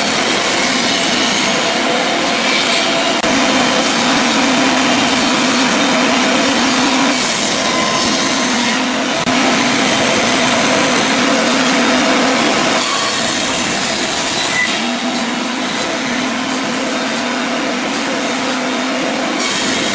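Table saw running and cutting narrow strips of wood fed through by hand. The sound of the cut changes several times as pieces go through the blade.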